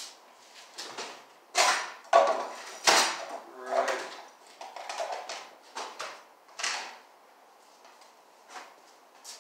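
Hard objects being handled on a workbench: a run of knocks and clatters, the loudest about two to three seconds in, growing sparser and fainter after about seven seconds.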